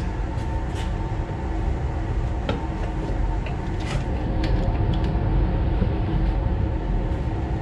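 A steady low hum from a running machine, with a few faint steady tones in it, and scattered light clicks and knocks of metal parts being worked loose under a car.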